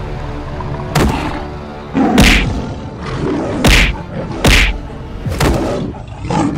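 Cartoon fight sound effects: a series of heavy thudding hits, about one a second, over background music.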